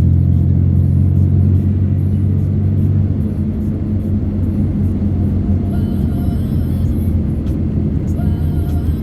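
Steady low rumble of a moving vehicle on the road, with music playing faintly over it.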